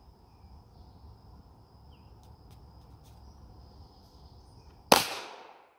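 A single shot from a CZ 75 P-01 9mm pistol about five seconds in: one sharp crack with an echo fading over most of a second. Before it, a steady high-pitched insect drone.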